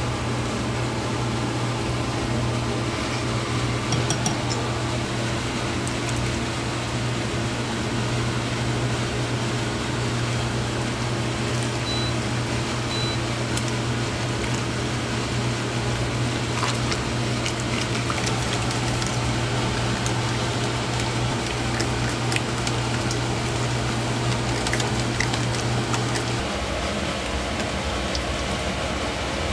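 Chili powder being whisked and stirred into liquid in a stainless steel pot, with scattered small clicks and scrapes of the utensil against the metal. Under it runs a steady machine hum that cuts off suddenly near the end.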